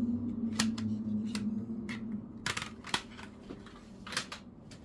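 Plastic CD jewel cases clicking and clacking as they are handled and opened: a string of sharp separate clicks, two close together about two and a half seconds in and two more near the end, over a low steady hum that fades out about halfway.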